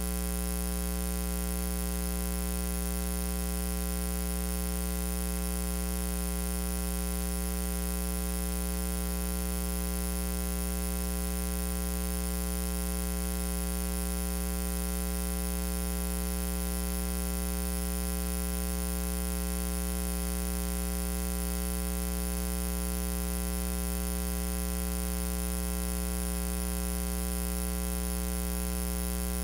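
Steady electrical mains hum with a buzz of its overtones, unchanging throughout, with no other sound.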